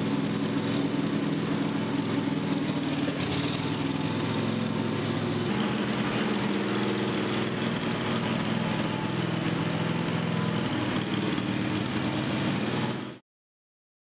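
Propane engine of a WerkMaster Titan XT concrete floor grinder running steadily as the machine grinds a concrete floor. The tone shifts slightly about five seconds in, and the sound cuts off abruptly near the end.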